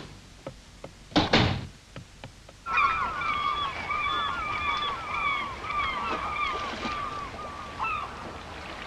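A single thump about a second in, then from about three seconds in seagulls crying again and again in short rising-and-falling calls over a steady background hiss.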